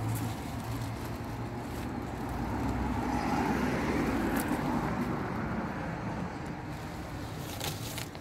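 Road traffic noise: a motor vehicle passing, growing to its loudest about four seconds in and then fading, over a steady low hum.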